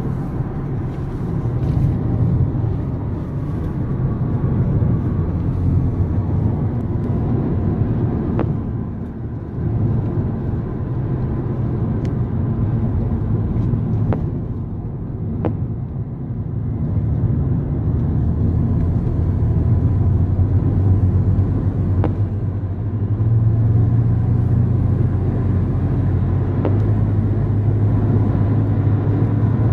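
Car driving, heard from inside a moving car: a steady low engine drone with road noise, which steps up in pitch twice near the end as the car accelerates.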